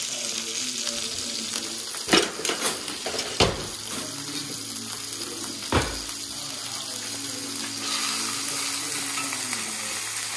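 Rabbit pieces sizzling steadily in a hot cast iron skillet, with a few sharp knocks about two, three and a half and six seconds in.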